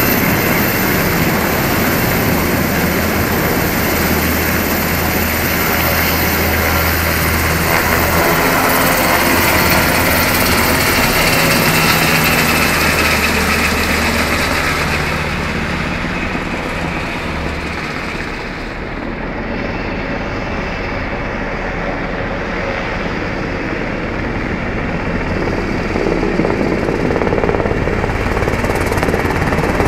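Army Black Hawk helicopter flying low overhead, its rotor and turbine engines loud and steady. It turns duller and a little quieter about halfway, then grows louder again near the end.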